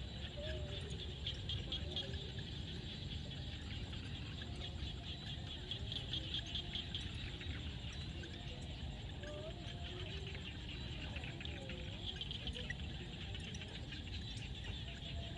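Evening chorus of frogs and insects calling together. A dense, high, pulsing trill swells and fades, with short lower calls that bend up and down every second or two over it.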